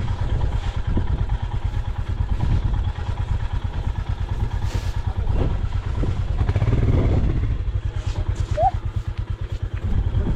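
Motorcycle engine running under way, a steady fast low pulsing beat, with a brief rising squeak about eight and a half seconds in.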